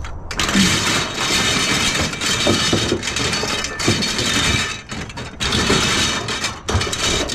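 Loud, continuous scraping and rattling of scrap being handled, in two long stretches with a brief pause about five seconds in.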